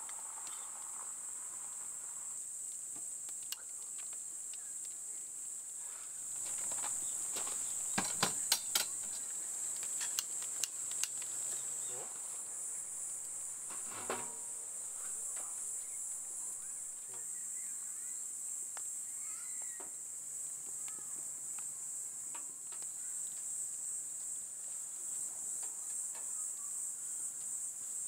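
A steady, high-pitched chorus of insects chirring. A handful of sharp clicks and snaps come in a cluster about a third of the way in, with one more shortly after.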